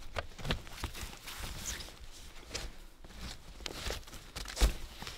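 Gloved hands undoing a latch on a hard-shell rooftop tent's lower edge: scattered small clicks and rustles, with one sharp knock about four and a half seconds in.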